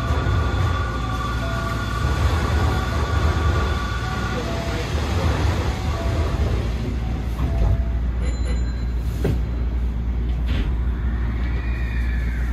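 Hankyu Kobe Line electric train running, with a steady low rumble from the wheels and running gear. A high steady whine fades out about four seconds in.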